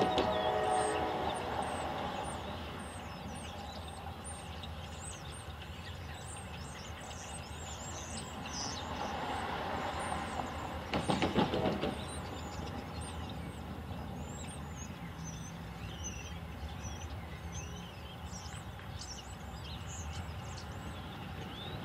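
A locomotive horn fades out in the first second, followed by a steady low rumble with small birds chirping. About eleven seconds in, a car drives over the crossing's rails with a short clatter.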